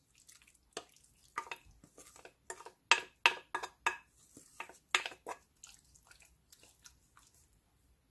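Wet marinated pork and kimchi plopping from a glass bowl into a wok, with a wooden spoon scraping and knocking against the glass bowl: irregular soft taps and knocks, a few of them ringing, the loudest about three and five seconds in.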